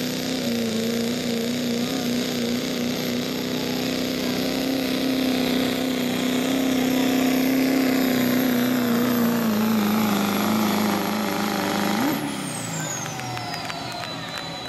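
Pulling-class Chevrolet Silverado turbo-diesel running flat out under load as it drags a weight-transfer sled, with a high turbo whistle over a steady engine note. The note sags as the sled bogs the truck down. About twelve seconds in the throttle lifts and the turbo whistle falls away in pitch as the run ends.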